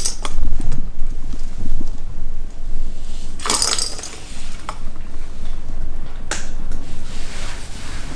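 Plastic ball rolling round the circular track of a cat track toy, a steady rolling rattle with sharp clattering clinks, the loudest about three and a half seconds in and again just past six seconds.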